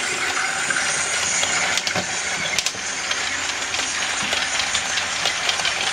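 Model train, a locomotive hauling coaches, running along the layout's track: a steady mechanical running noise with many small clicks and ticks from the wheels on the rails.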